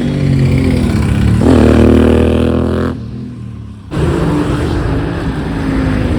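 Royal Enfield GT650's parallel-twin engine running and revving, its pitch climbing about a second and a half in. The sound drops away suddenly around three seconds in for about a second, then the engine picks up again and runs steadily.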